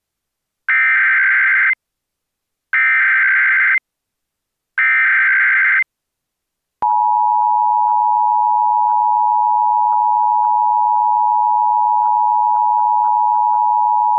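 Emergency Alert System SAME header: three one-second bursts of screeching digital data tones, each followed by a second of silence. About seven seconds in, the steady two-tone EAS attention signal (853 and 960 Hz together) begins, announcing the alert.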